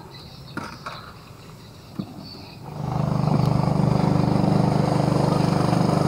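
Small motorboat engine running steadily as a boat passes on the river, coming in abruptly about three seconds in; a few light knocks before it.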